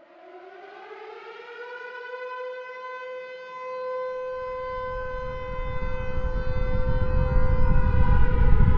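A siren wail, rising in pitch at first and then holding steady, with a low rumble swelling beneath it from about four seconds in and growing steadily louder.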